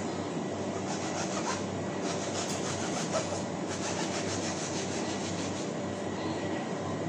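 Steady fan drone with a constant low hum, with the light scrape of a knife paring the skin off a mango in short strokes in the middle.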